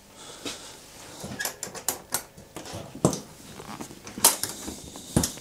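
Stainless steel smokehouse door being shut and its handle latched: a series of light metal clicks and knocks, the loudest a little over four seconds in.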